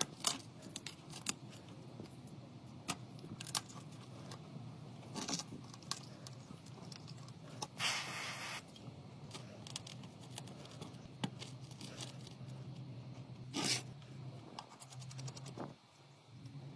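Small clicks, taps and scrapes of tools and small parts being handled while an old mobile phone is taken apart or worked on, with a brief noisy scrape or hiss about eight seconds in and another short one near the end, over a low steady hum.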